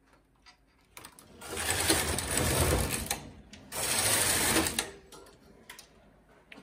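Double-bed domestic knitting machine: the carriage is pushed across the needle beds and back, two passes of a second or two each with a brief pause between, a rushing mechanical clatter as each row is knitted in double-bed jacquard.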